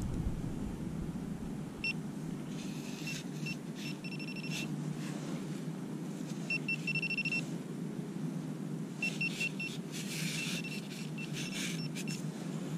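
Garrett Pro-Pointer pinpointer beeping in several short runs of a high tone as it is probed through loose dirt, the beeps coming quickly and nearly running together at times as it closes on a buried target. Hands scrape through the soil, loudest near the end.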